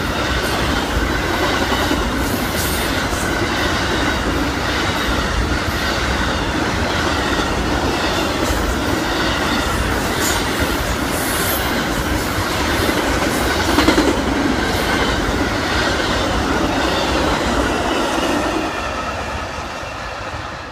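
Amtrak Auto Train's autorack car carriers passing at speed: a steady rumble of steel wheels on rail with repeated clicking over the rail joints. The sound falls away near the end as the last car goes by and the train draws off.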